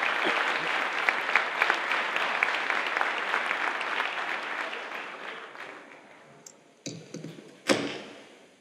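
Audience applauding, the clapping dying away over several seconds. Near the end come two loud knocks from the podium microphone being handled.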